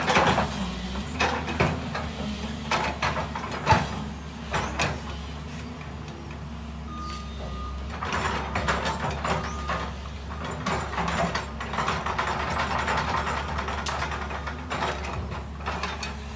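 JCB tracked excavator's diesel engine running steadily while the bucket digs through brush and soil, with scattered sharp cracks and knocks in the first half. About halfway in, a longer stretch of scraping noise sets in.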